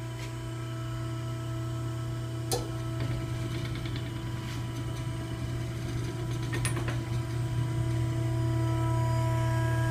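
Electric drive of a mandrel bend tester running steadily as its arm swings round, bending a coated test panel over the mandrel. It makes a steady hum that grows slowly louder, with light clicks about two and a half and nearly seven seconds in.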